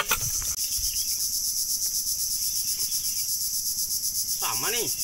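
Steady high-pitched chorus of insects in the mangroves, pulsing fast and unbroken, with a short wavering call near the end.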